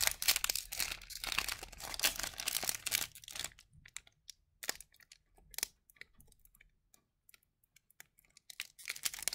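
Crinkling and tearing of a foil trading-card pack wrapper for the first three and a half seconds or so, then scattered light clicks and rustles of the pack and cards being handled.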